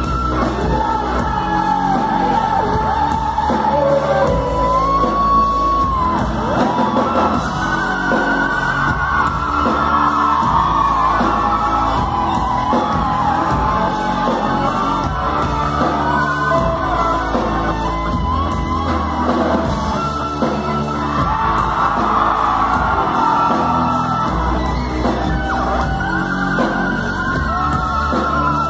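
Live rock music: an electric guitar played through an amplifier over a full band, with bending, sliding lead lines, singing and yells.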